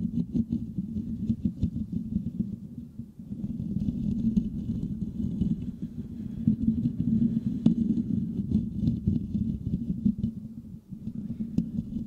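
Fingertips scratching and rubbing the metal mesh grille of a Blue Yeti microphone close up. The result is a dense, bass-heavy scratching full of small crackles, with short lulls about three seconds in and again near the end.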